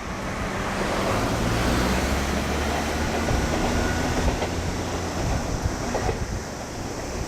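A train passing close by: a steady low drone with scattered wheel clicks over the rail joints.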